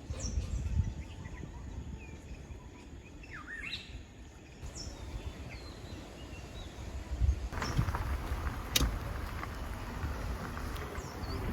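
Birds calling with short, quick down-slurred chirps every second or two, over a low rumble of wind. A couple of sharp clicks come about two-thirds of the way through.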